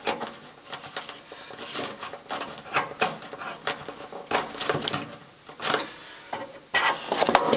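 White plastic cable gland nut being screwed down by hand around a thick black power cable, with irregular scraping and clicking of the plastic threads and the cable jacket rubbing, busiest near the end.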